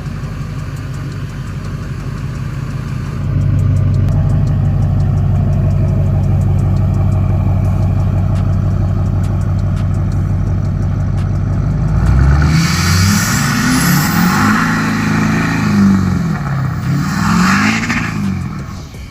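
Duramax diesel truck engine running at a steady idle, then revved up and back down a few times near the end.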